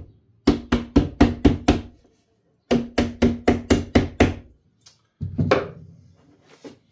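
Rubber mallet tapping a new window sash onto the bottom edge of a Chevy C10 door glass to seat it over its rubber: two quick runs of about four taps a second, each tap with a short ring. A single further knock comes about five seconds in.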